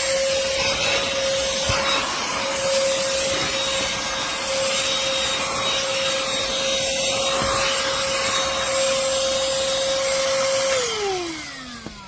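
Black+Decker Pivot cordless handheld vacuum running with a steady whine, then switched off near the end, its motor falling in pitch as it winds down.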